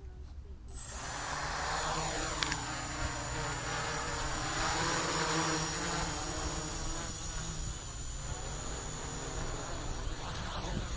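Hexacopter's electric motors and propellers spin up about a second in, then run steadily with a thin high whine as the craft lifts off and hovers low.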